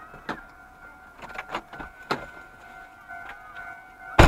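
Railway level-crossing warning signal sounding a steady two-pitch tone, with scattered sharp clicks and one loud bang about four seconds in.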